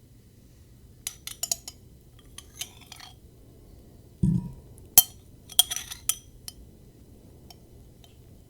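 Cutlery clinking against a dish, in a few short clusters of light clinks. A dull thump comes a little past four seconds, and the sharpest single clink comes at about five seconds.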